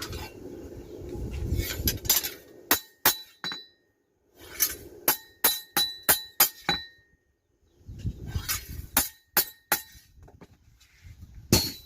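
Hammer blows on the steel blade of an egrek, an oil-palm harvesting sickle, during smithing: sharp metallic strikes in quick bursts, each ringing briefly. A low rumbling noise lies under some of the strikes.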